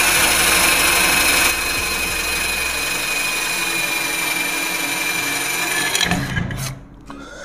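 INGCO CDLI1211 12V cordless drill running a 5 mm metal bit into an 18-gauge steel pipe: a steady motor whine that gets quieter about a second and a half in and stops about six seconds in. A few light knocks follow near the end.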